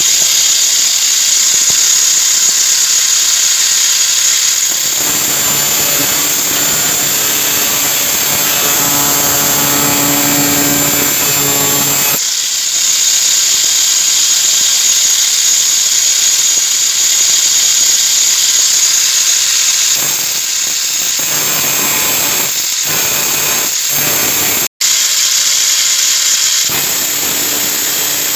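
Angle grinder running at full speed, a loud steady high whine and hiss. Between about 5 and 12 seconds in, and again near the end, a lower hum joins it. The sound cuts out for a split second about 25 seconds in.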